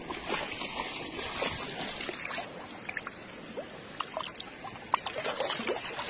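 Shallow seawater sloshing and bubbling around a phone held at the surface, with many small pops and clicks and one sharper click about five seconds in.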